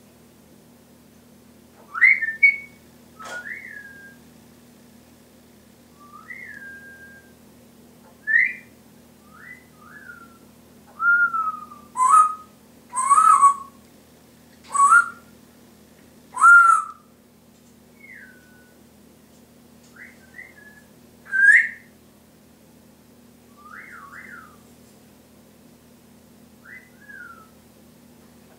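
Timneh African grey parrot whistling: a string of short separate whistled notes that rise and fall in pitch, with a few louder, rougher calls in the middle.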